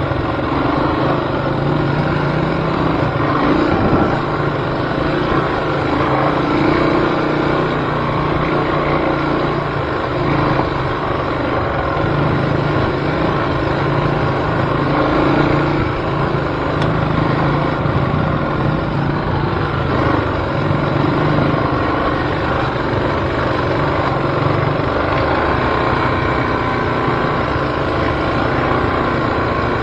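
Off-road vehicle's engine running steadily, its pitch wavering a little.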